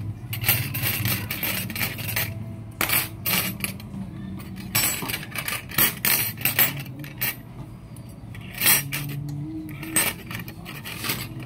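Small steel cockfighting gaffs (tari) clinking and clattering against each other and the tabletop as they are picked up and sorted by hand, in irregular light metallic clicks.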